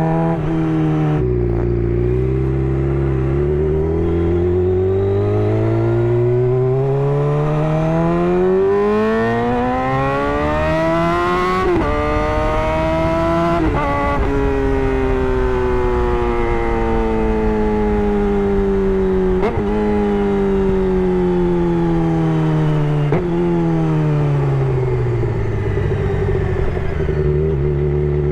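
Suzuki GSX-R 600 inline-four through an M4 GP slip-on exhaust, pulling hard in a long rising rev for about ten seconds, then two quick upshifts. It then slows down on a long falling note broken by two downshifts, settling to a steady low note near the end.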